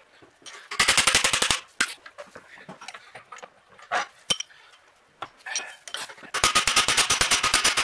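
Hammer striking a steel punch against a U-joint trunnion clamped in a vise: rapid runs of sharp metallic taps about a second in and again from about six seconds on, with a few single taps between. The taps drive the universal joint's parts outward against their retaining clips.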